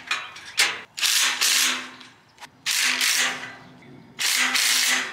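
Cordless impact driver with a socket tightening nuts onto the bolts of a steel cargo basket frame. It gives a short blip under a second in, then three hammering runs of about a second each, with a steady motor whine underneath.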